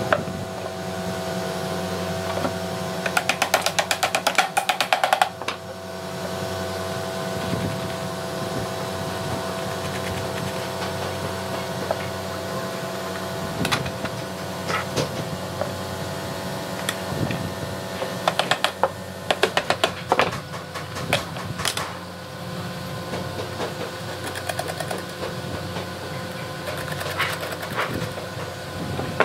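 Bursts of rapid metallic clicking and rattling from bolts, washers and nuts being fitted through the wooden hinge arms of a toolbox. Three bursts come, about three seconds in, around the twentieth second and near the end, over a steady humming background.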